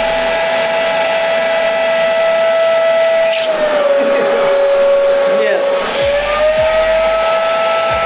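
Construction vacuum cleaner running at full suction with a steady high whine, its pipe sealed against a plastic bag wrapped around a bowling ball. About three and a half seconds in the pitch sags a little, and about two and a half seconds later it rises back.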